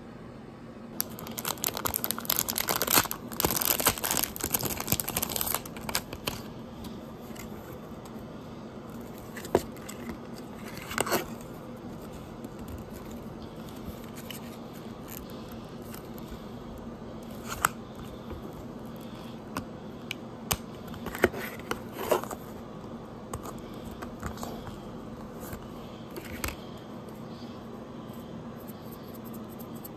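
Plastic packaging crinkling and tearing for several seconds as a card of hair clips is opened, then scattered light clicks and taps as the plastic clips are handled.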